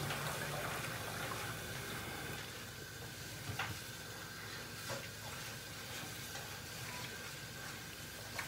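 Kitchen tap running steadily over cut beef tripe in a plastic colander, the water splashing as hands turn the pieces to rinse them, with a couple of light knocks midway.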